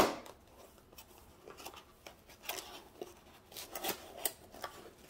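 A sharp knock right at the start, then scattered scratching and scraping as hands work at a cardboard box whose lid is held shut by tape on both sides.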